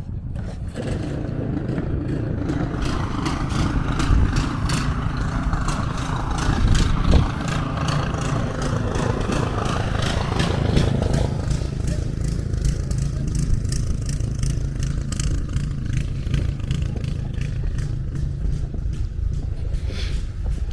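Footsteps crunching in snow at a steady walking pace, with wind rumbling on the microphone. A vehicle is heard passing in the first half and fades out about eleven seconds in.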